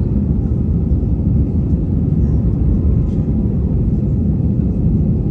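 Inside the cabin of an Airbus A320 climbing out after takeoff: the steady low rumble of the jet engines and rushing air, even in level throughout.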